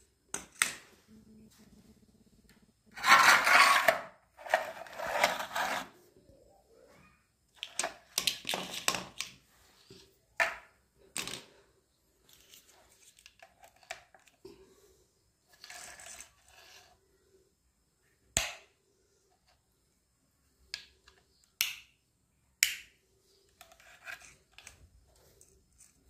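Handling noises of small electrical fittings and wires: two loud rustling, scraping bursts a few seconds in, then scattered sharp plastic clicks and knocks as a bulb holder and a plug are handled and the plug is pushed into a switchboard socket.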